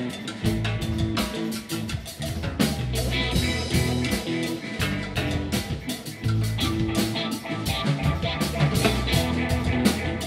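Live rock band playing: electric guitars, electric bass and drum kit, with frequent drum and cymbal hits over a changing bass line.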